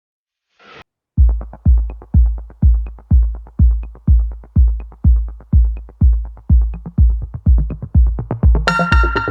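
Electronic dance music: a steady, heavy kick drum at about two beats a second, preceded by a brief swish, with a bright synth chord coming in near the end.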